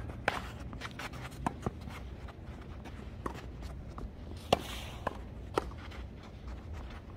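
Tennis balls struck by rackets and bouncing on the court during a doubles rally: a series of sharp pops a second or so apart, the loudest about four and a half seconds in.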